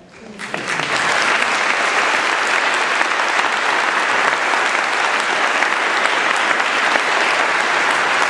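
Audience applauding, swelling in over the first second and then holding steady.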